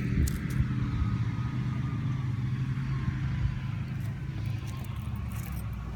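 A steady low engine-like hum, with a few faint clicks.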